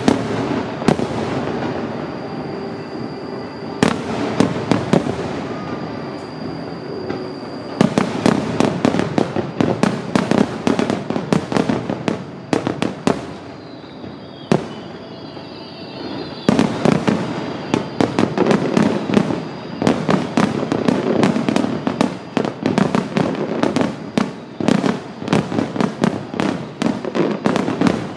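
Aerial fireworks display: rapid volleys of shells bursting in dense strings of bangs and crackles, thinning out about halfway through before picking up again into a sustained barrage.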